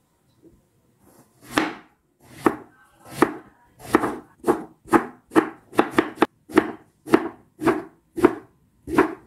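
Kitchen knife slicing purple eggplant on a wooden cutting board. After a quiet second and a half come about fifteen crisp cuts, roughly two a second, each ending in a thud on the board.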